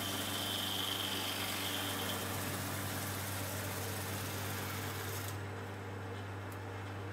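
Log lathe's electric motors and milling cutter running steadily as the cutter head mills a round notch into a log, with a steady low hum under a high hiss of cutting. About five seconds in the high hiss drops away, leaving the motor hum.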